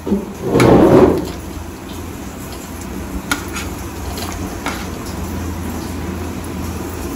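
Pieces of raw fish dropped from a slotted ladle into fish curry simmering in a clay pot, with a splash about half a second in and then a few light clinks of the ladle against the metal plate, over a steady low rumble.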